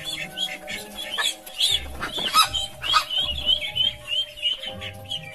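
Background music with sustained notes, over a fighting rooster and goose squawking, with short wavering calls coming thickest in the second half.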